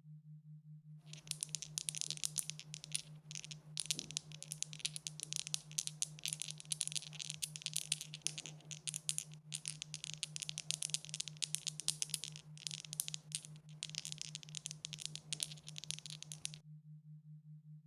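Dice rattling continuously as they are shaken: fast, dense clicking from about a second in until near the end, with a few brief pauses.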